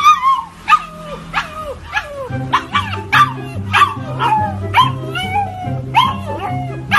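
A fluffy husky-type puppy giving a rapid series of short yipping howls, each dropping in pitch, about one every half second. Background music plays underneath.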